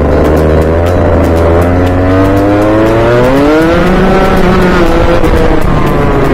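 Rotax Junior Max 125 cc two-stroke kart engine heard from onboard, rising steadily in pitch for about three seconds as the kart accelerates out of a corner, then dropping back about four seconds in as the driver lifts for the next bend and holding at a lower, steady note.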